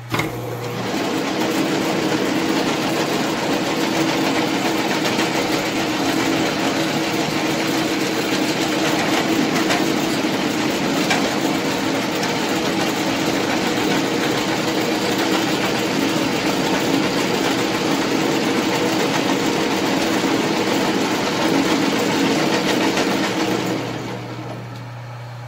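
Sheldon metal lathe running, its rebuilt quick change gearbox set to the fastest feed (53.5 thousandths), so the gear train and lead screw turn and power-feed the carriage: a steady mechanical whirr with a hum, starting at once and dying away about a second before the end as the lathe is switched off.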